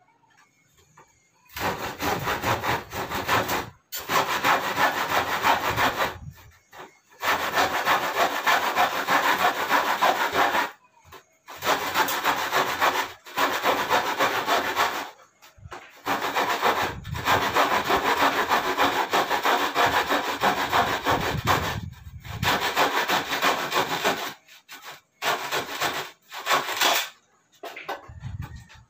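Hand saw cutting through wooden crib slats in long runs of quick back-and-forth strokes, broken by short pauses. Near the end it comes in shorter bursts, then stops.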